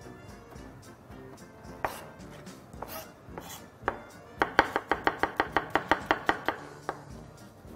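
Chef's knife finely chopping onion on a plastic cutting board: a few single cuts, then about two and a half seconds of quick, even strokes at about seven a second.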